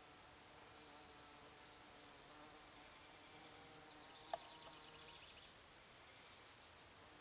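Bees buzzing faintly as they fly among Solomon's seal flowers, a low steady hum. One short sharp click a little over four seconds in.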